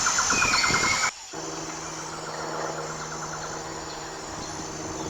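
A flock of geese calling for about a second before an abrupt cut. Then a steady low hum, like a distant motor, with faint rapid ticking or chatter that fades away.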